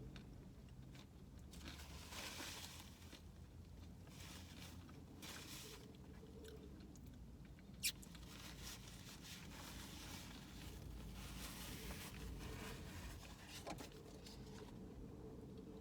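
A person chewing food close to the microphone, in soft, repeated spells of chewing. There is a single sharp click a little before the middle.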